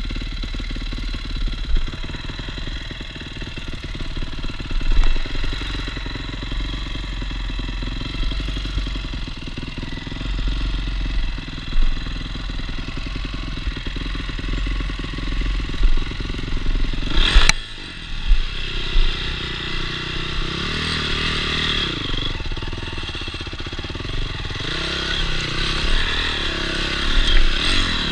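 Enduro motorcycle engine running on a trail ride, its pitch rising and falling with the throttle. There is a sharp knock about two-thirds of the way through.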